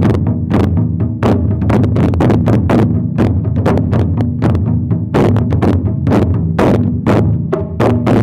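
Taiko ensemble playing: barrel-shaped chu-daiko drums on slanted stands struck with wooden bachi sticks, over a steady pattern of sharper strikes from small shime-daiko. A driving, even rhythm of several strikes a second.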